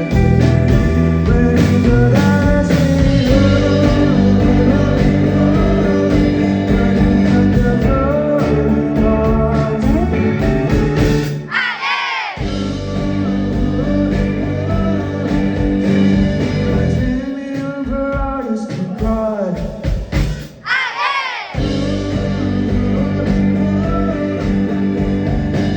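Live rock band playing a song with singing and guitar. The low end cuts out briefly twice, about twelve and twenty-one seconds in, before the full band comes back.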